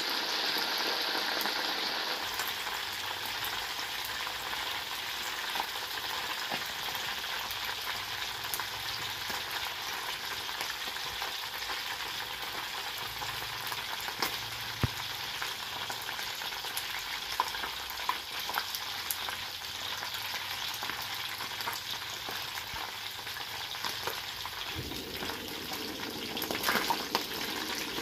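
Flour-battered fish pieces deep-frying in a wok of hot oil, a steady sizzle with scattered pops. Near the end a metal spatula stirs the fish, with a few knocks against the wok.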